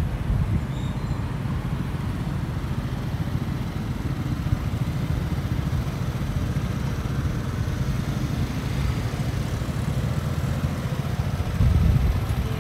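Steady low rumble of motor vehicle noise, even throughout with no distinct engine note.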